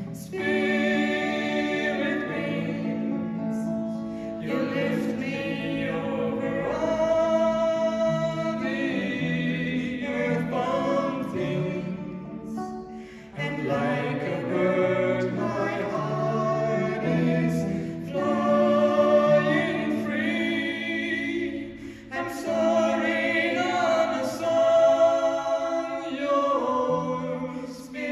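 A woman and a man singing a worship song together in harmony, with acoustic guitar accompaniment, phrase after phrase with short breaths between them.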